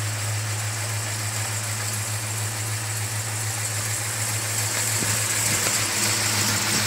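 A 428 cubic-inch Ford V8 with headers and Magnaflow exhaust idling steadily, heard from inside the cab as an even low hum.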